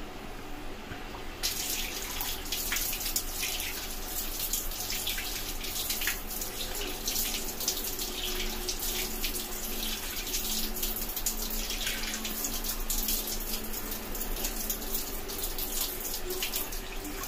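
Water running from a tap into a sink and splashing over hands being rinsed of soap lather. The flow starts about a second and a half in.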